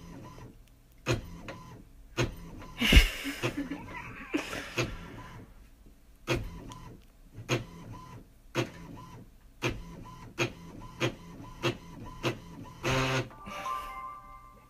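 All-in-one printer printing a page: sharp clacks about once a second, with longer whirring runs as the paper feeds, the loudest about three seconds in and again near the end.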